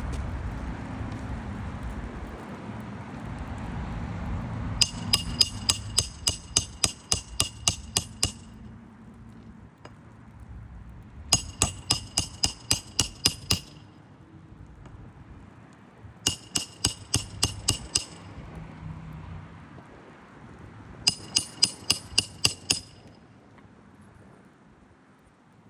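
A hammer rapidly striking a steel roofing tool driven under asphalt shingles to break their seals, in four runs of about six to fourteen blows at roughly four a second. Each blow rings metallically.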